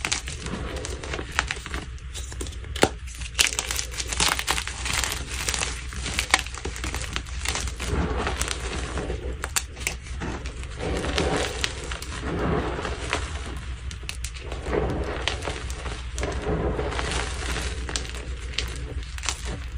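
Blocks of lightly dyed gym chalk being crushed: a continuous run of small sharp cracks and crumbling, with one louder crack about three seconds in.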